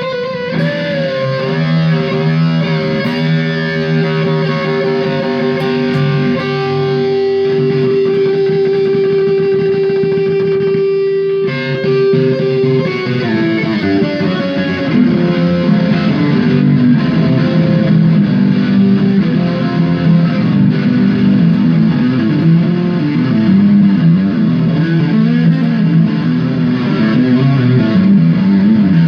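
Electric guitar improvising a solo through an amplifier, lightly distorted. It holds one long sustained note for several seconds, then moves into busier runs and chords.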